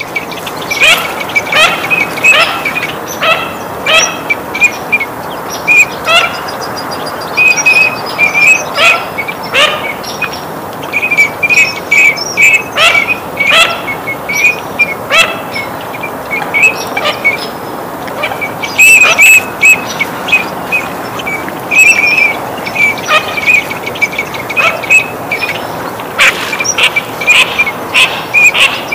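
Eurasian teal calling: short, high whistled notes repeated in quick runs, again and again, with brief pauses between runs.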